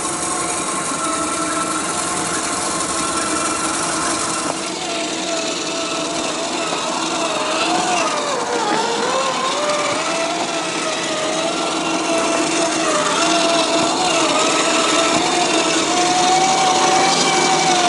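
Scale RC crawler, an RC4WD Trail Finder 2, driving slowly. Its electric motor and gearbox whine, the pitch wavering with throttle and dipping then rising again about halfway through, over the rough hiss of the tyres crunching over dirt and stones.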